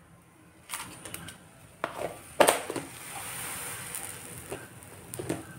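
Milk boiling up in a stainless steel kadhai, a steady fizzing hiss as the foam rises. A few sharp clicks come in the first couple of seconds.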